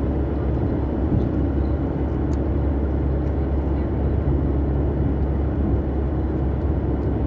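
Steady low rumble of a car driving along the road, engine and tyre noise heard from inside the cabin.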